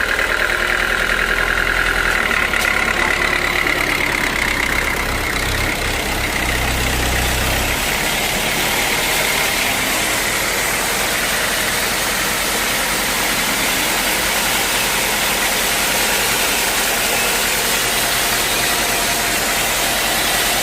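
Sawmill machinery running steadily, with a deep low rumble that drops away about eight seconds in.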